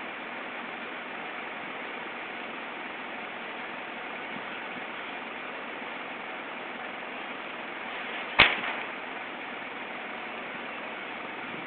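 Steady street noise of cars queued in traffic, an even hiss with no rhythm. About eight seconds in there is one sharp snap, the loudest sound.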